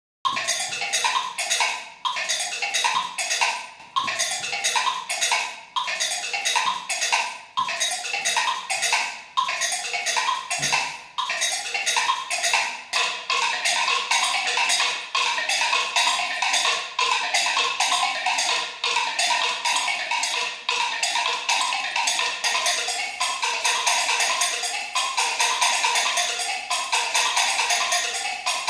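Robotic percussion sculpture striking its clamp-mounted blocks and bells in dense, fast, interlocking rhythms, improvised in real time by software running eight independent clocks. The playing starts abruptly at the beginning.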